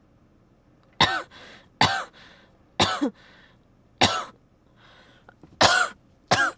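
A person with a cold coughing in a fit: six hard coughs about a second apart, starting about a second in.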